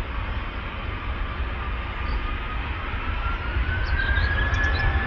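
Airbus A320 jet engines spooling up for take-off: a whine that climbs in pitch about halfway through, over a steady low rumble that slowly grows louder. Birds chirp faintly.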